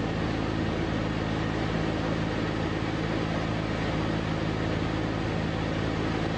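A Shadow microlight's engine and propeller running steadily at an unchanging pitch, under an even rush of wind noise.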